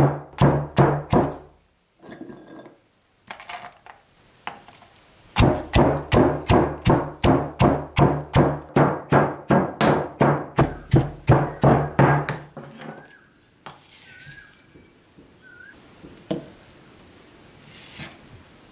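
Stone pestle pounding dried red chillies in a heavy stone mortar: a run of dull thuds about three a second. It breaks off about two seconds in, with a few lighter knocks, starts again about five seconds in, and stops about two-thirds of the way through.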